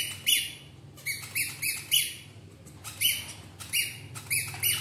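Baby macaque squealing: runs of short, high-pitched squeaks, several a second, broken by brief pauses.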